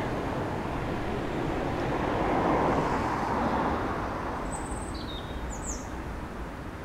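Off-screen road traffic: a steady rumble of passing vehicles that swells about two to three seconds in and then fades, with a few short bird chirps near the end.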